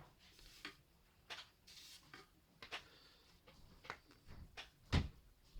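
A small hand tool scraping and tapping on a circuit board, scratching the coating off broken copper traces to prepare them for soldering: light scratchy scrapes and scattered clicks, with a louder knock near the end.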